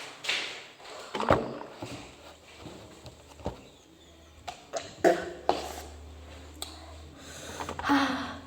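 A few scattered sharp knocks and thunks, with short rustles in between, like objects being handled and set down.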